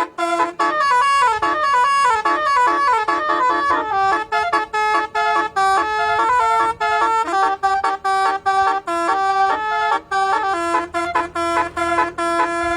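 Bus telolet horn, a multi-trumpet musical air horn, playing a fast melody of short notes one after another with brief gaps.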